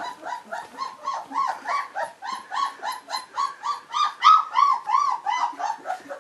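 Four-week-old Saint Bernard puppies crying: a steady run of short, high whines, each rising and falling in pitch, about three a second. It is the sound of littermates that are unhappy.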